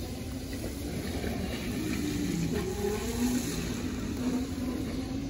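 Segway Ninebot GoKart Pro electric go-kart driving on wet pavement, its whine rising and falling in pitch as it speeds up and slows, over a steady hiss.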